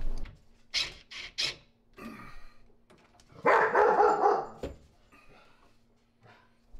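A dog barking briefly, about three and a half seconds in, after a few short, sharp sounds.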